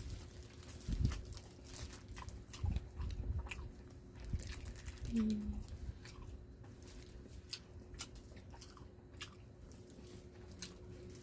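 Chewing and crunching while eating wood-fire roasted chicken and crusty scorched-rice nurungji, with scattered small clicks from handling the food.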